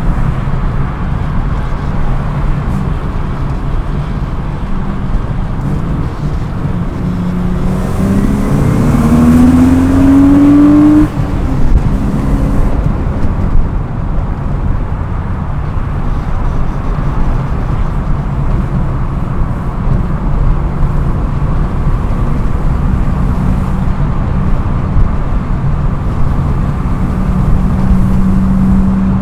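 BMW E36 M3's straight-six engine running while driving, with road noise. About a third of the way through it revs up in a rising pitch under acceleration and cuts off abruptly, as at a gear change, then settles back to a steady cruise.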